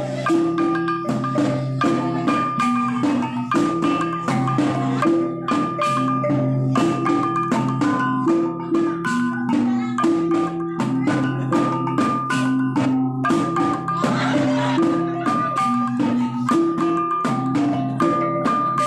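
A set of small bossed kettle gongs in a wooden frame, struck with wooden sticks in a fast repeating pattern of ringing metallic notes, with deeper gong tones sounding beneath in a steady cycle.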